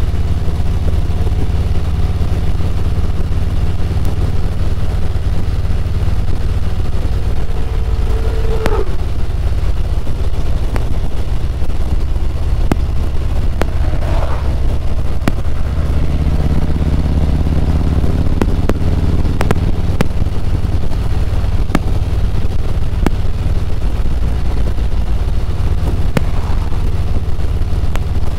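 Harley-Davidson Road Glide's V-twin engine running steadily at cruising speed, mixed with wind noise from riding, as heard from the handlebars. The engine note changes slightly about halfway through.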